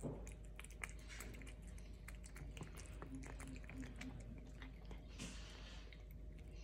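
Domestic medium hair cat eating wet tuna from a small can: a rapid run of faint, wet licking and chewing clicks, with a short breathy puff about five seconds in.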